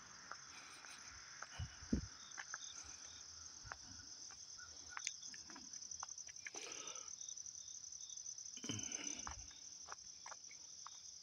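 Faint, steady high-pitched chorus of insects, with a second insect chirping in short, regularly spaced pulses. A few soft thumps and light clicks come and go.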